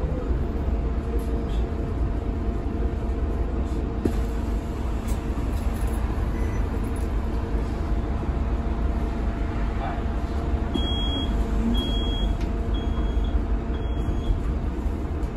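Cabin sound of a moving Scania K320HB bus: its DC9 five-cylinder diesel and the road give a steady low rumble with a faint steady whine. Four short high beeps sound in the second half.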